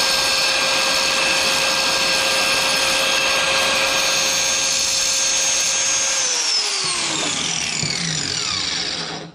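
Black+Decker angle grinder running at full speed with a steady high whine, then switched off about six seconds in, its pitch falling as the disc spins down to a stop near the end.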